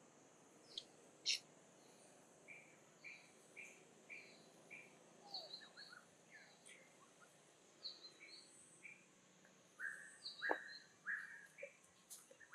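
Faint bird chirping: short repeated notes, including a run of about five evenly spaced chirps, with scattered other calls and a few sharp clicks over a steady faint high hiss.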